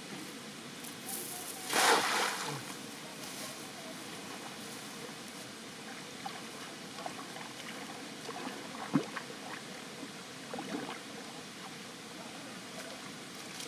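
Cast net hitting the creek water with one loud splash about two seconds in, followed by a few small splashes and drips.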